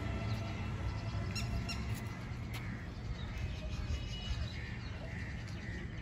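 A few faint, short bird calls over a steady low rumble.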